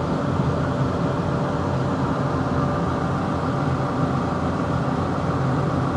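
Vehicle engine running steadily with a low, even hum, heard from inside its cab.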